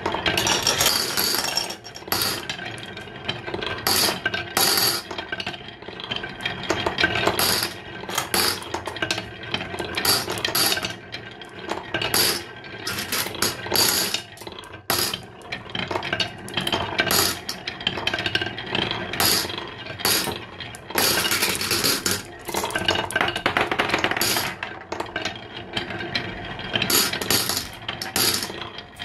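Glass marbles rolling down a carved wooden serpentine track, rattling and clicking against the wooden groove walls in a continuous stream of small knocks.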